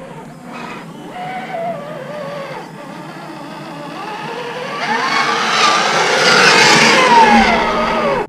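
Traxxas TRX-4 RC crawler's electric motor and gears whining, running on a 3S LiPo. The whine rises and falls in pitch with the throttle as the truck climbs the sand hill toward the microphone, getting louder through the second half, then cuts off suddenly.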